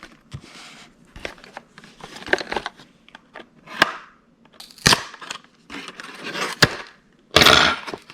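A small cardboard blind box being opened by hand: a string of sharp clicks and snaps from the card flaps and packaging, with brief rustles and a louder tearing rustle near the end.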